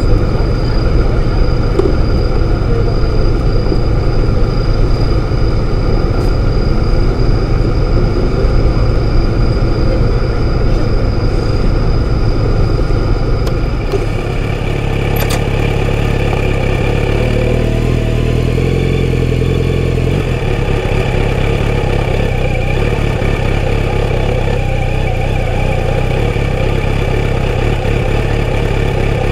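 Kawasaki Z900RS's inline-four engine through a full-system exhaust, idling steadily. About halfway through the sound changes abruptly, and the engine runs on at low revs while the bike rolls slowly.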